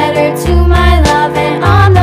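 Upbeat children's background music with a melody over a steady bass beat.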